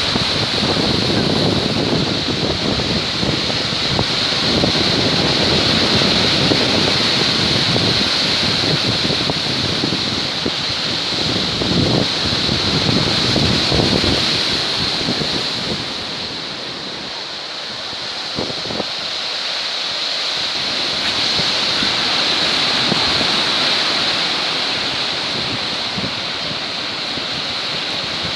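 Stormy sea surf: waves breaking and washing in continuously, rising and falling in surges, with wind buffeting the microphone.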